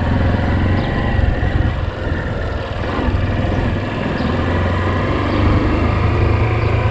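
Motorcycle engine running at low revs, its level rising and dipping slightly as the rider sets off.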